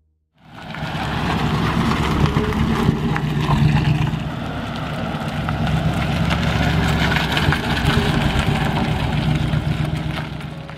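A 1939 Cadillac Series 61's V8 engine running steadily. It fades in about half a second in and eases off near the end.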